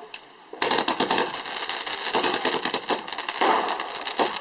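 Fireworks crackling: a dense, rapid run of small pops that starts about half a second in and keeps going.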